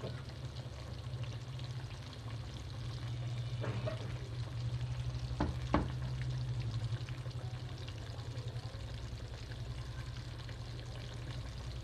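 Chicken frying in hot oil: a continuous crackling sizzle over a steady low hum, with two quick knocks a little past halfway.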